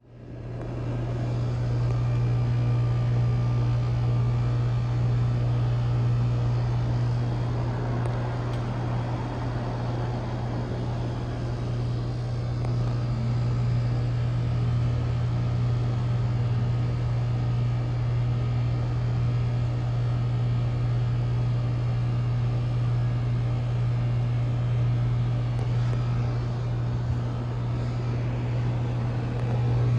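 2010 Rheem Classic heat pump outdoor unit running with a steady low hum and an airy rushing noise, and a brief swell of hiss about eight to ten seconds in.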